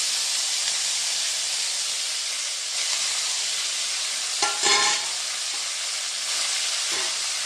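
Chopped onion, capsicum and spring onion sizzling steadily in hot oil in a steel wok on full flame, with a brief metallic scrape of stirring against the pan about four and a half seconds in.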